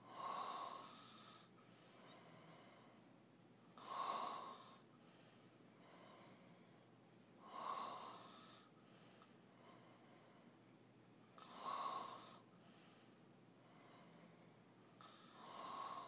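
Open-mouth snoring in sleep: five snores, one on each breath, about four seconds apart.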